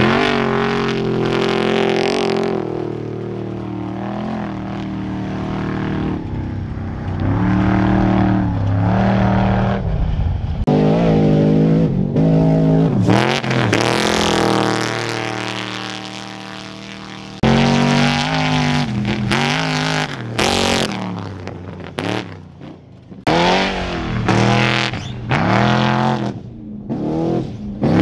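Trophy Truck race engines at full throttle, revving up and dropping off as the trucks pass one after another on the off-road course. The pitch climbs and falls again and again, with sudden jumps from one truck to the next.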